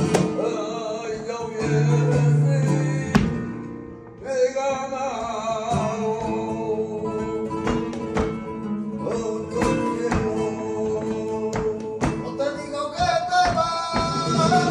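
Live flamenco: a Spanish guitar plays under a wavering sung line, with sharp hand claps (palmas) cutting through. The music drops away briefly about four seconds in, then resumes.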